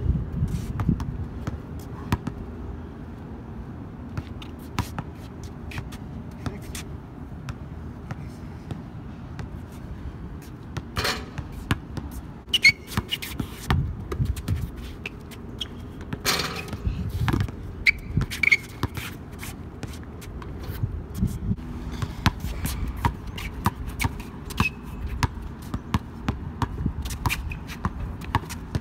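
Basketball being dribbled on an outdoor hard court, an uneven run of sharp bounces, with a couple of louder knocks partway through and a few brief squeaks.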